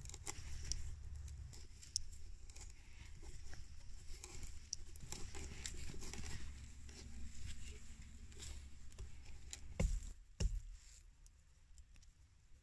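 Small auger bit in a tap handle, turned by hand to bore a peg hole in an old cedar log: irregular scraping and crackling as it cuts the wood and lifts shavings. Two sharp knocks about ten seconds in, after which it goes quieter.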